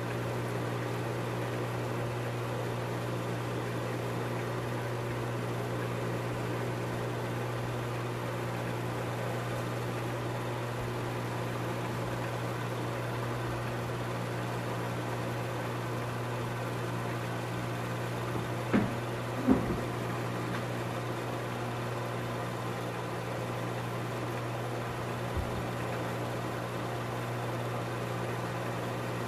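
Film projector running: a steady motor-and-fan hum with a low drone. Two sharp knocks come close together about two-thirds of the way in, and a fainter one a few seconds later.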